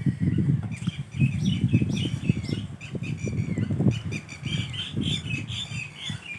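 Red-wattled lapwings calling in short, repeated sharp notes, an alarm racket from birds with eggs nearby, over a loud, uneven low rumble.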